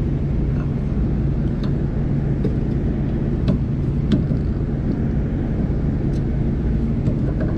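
Steady low machinery hum with a constant tone, broken by a few light clicks and knocks as the link belt is worked onto the pulleys.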